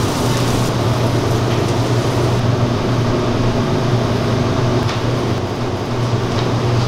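Steady machine hum with an even hiss, typical of kitchen ventilation running, with a couple of faint utensil clicks.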